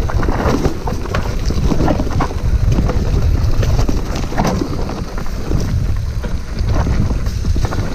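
Wind rumbling on the microphone as a mountain bike rolls down a rough dirt trail, with tyres crunching on gravel and frequent irregular clicks and rattles from the bike over bumps.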